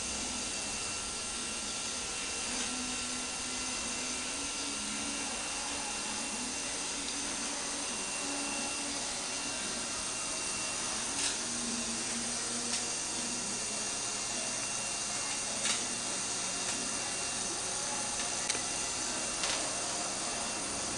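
Electric welding arc burning on a steel frame: a steady hiss with a few sharp pops spread through it.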